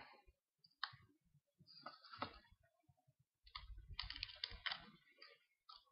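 Faint, irregular clicking, crackling and scraping as broken glass is picked and pried off a first-generation iPhone's screen, busiest about halfway through.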